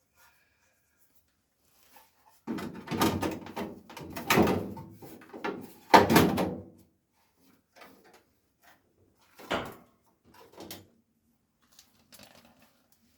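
Handling noise from a workshop job: several rough clattering and scraping bursts of about a second each, the loudest about six seconds in, then a sharper knock and a few fainter knocks.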